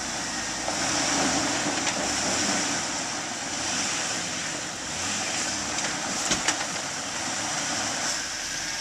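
A Jeep Wrangler crawling slowly over rocks, its engine running at low revs, under a steady high hiss. A couple of sharp knocks come a little past halfway.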